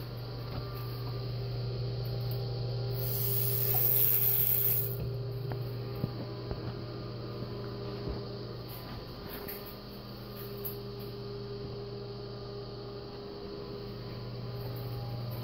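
Steady low electrical hum, somewhat weaker in the middle, with a loud hiss lasting about two seconds starting about three seconds in, and a few faint knocks.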